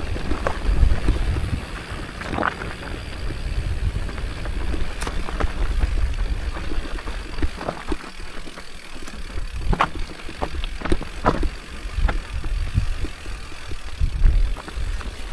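Mountain bike descending a rocky dirt singletrack: a steady low rumble of the ride, broken by frequent sharp rattles and knocks as the bike rolls over stones.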